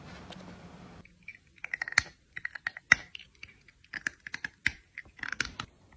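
A rapid, irregular run of sharp clicks and taps, several a second, starting about a second in after a faint hiss.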